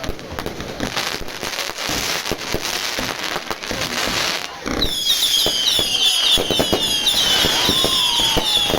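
Fireworks going off: a fast crackle of many small pops and bangs. About halfway through, a volley of whistling fireworks starts, many short high whistles overlapping, each falling slightly in pitch.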